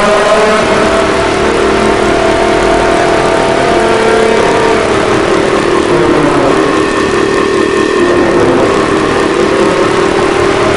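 Emergency alarm siren sounding continuously at a steady pitch, several tones heard together.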